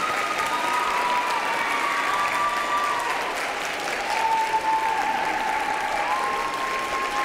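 Audience applauding, with a thin high tone held over the clapping that shifts in pitch every second or two.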